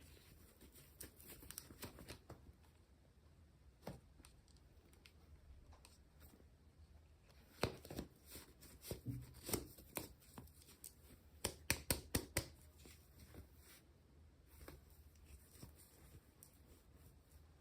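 Faint handling noise from hands working small packaging: scattered sharp clicks and taps, with a quick run of louder clicks in the middle.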